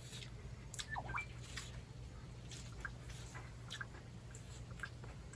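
Quiet scattered clicks and taps of people eating at a meal table: utensils and dishes, with chewing. A brief falling squeak about a second in.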